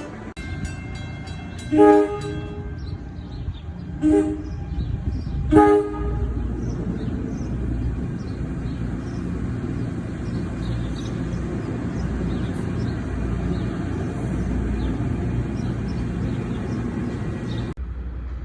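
Three short horn blasts, about two seconds apart, followed by a steady low rumble that cuts off suddenly near the end.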